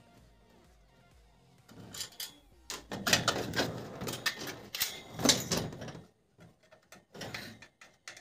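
Red plastic room heater being handled and turned over on a hard floor: a run of knocks, clatters and scrapes of its plastic housing and metal body, densest in the middle, thinning to a few scattered clicks.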